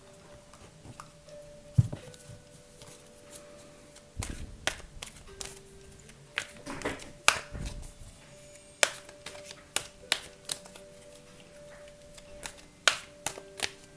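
A deck of tarot cards being handled and shuffled by hand: irregular soft clicks and taps of the card stock, some sharper than others. Faint steady background music runs beneath.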